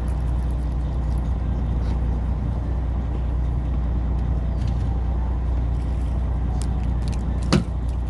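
A small fishing boat's engine running steadily, a low even hum, with one short knock about seven and a half seconds in.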